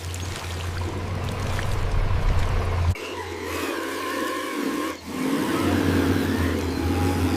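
Radio-controlled toy car's electric motor running, a whine that wavers in pitch as it speeds up and slows, over a steady low rumble that cuts out briefly twice.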